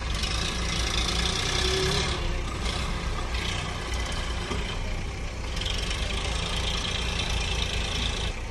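A heavy diesel engine running steadily with a low rumble, with a hiss that rises and falls in stretches of a second or two.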